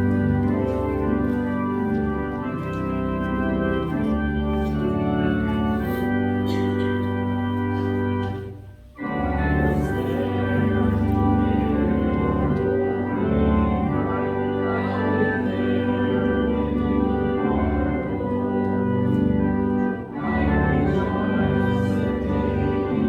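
Organ playing the hymn in sustained chords. The music breaks off for a moment about nine seconds in, then resumes.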